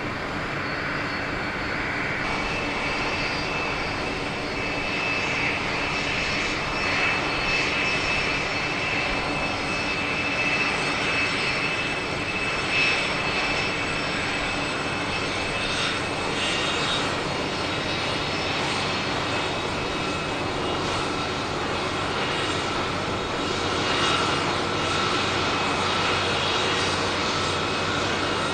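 Boeing 747-400D jet engines running steadily: a continuous rush with a high whine over it.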